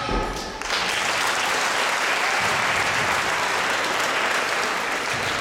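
A low thud right at the start as the gymnast lands his rings dismount on the crash mats. From just under a second in, the audience applauds steadily.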